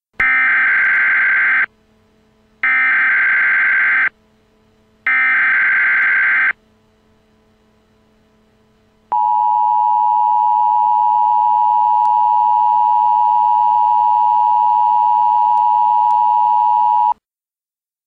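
Emergency Alert System SAME header: three short bursts of buzzy digital data tones, each about a second and a half long, followed after a pause by the two-tone EAS attention signal held steady for about eight seconds and cut off suddenly. Together they announce the start of an emergency alert broadcast.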